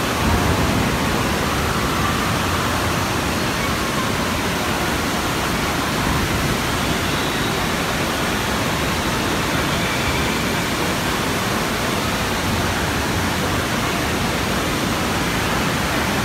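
Steady rushing-water noise of an indoor water park's lazy river and water features, an even din with no distinct events.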